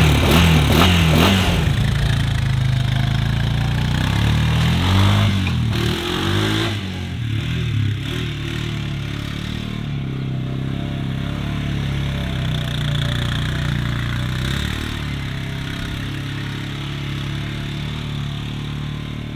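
Honda Rancher ATV's single-cylinder engine running again after being swamped in a pond, revved up and down for the first several seconds, then holding a steadier pitch while being ridden.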